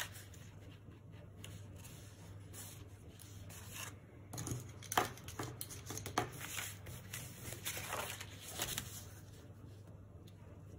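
Blue cardstock being lifted and creased along a ruler: soft rustles of the card with a cluster of short, sharp crackles as it folds, mostly in the middle of the stretch.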